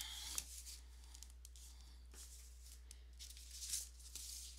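Faint, brief rustling and scraping from painting materials being handled, over a steady low electrical hum.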